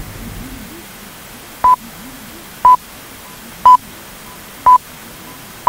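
The BBC Greenwich Time Signal, 'the pips': short, single-pitched beeps exactly one second apart, counting down to the top of the hour, over a faint hiss. Four sound clearly and a fifth comes at the very end.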